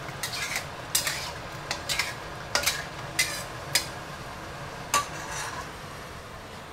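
A metal spoon stirring tomato sauce in a stainless-steel wok, with a string of sharp clinks and scrapes of metal on metal that stop about five seconds in.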